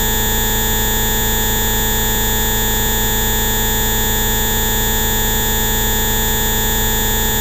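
A bioresonance frequency-therapy track of Rife-style synthesized tones: many steady pitched tones sound together, from a low hum up to a very high whine, without any change in pitch or loudness.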